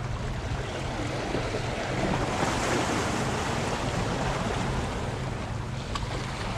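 Small waves washing and splashing over shoreline rocks, the wash swelling a little louder about two seconds in, with wind buffeting the microphone.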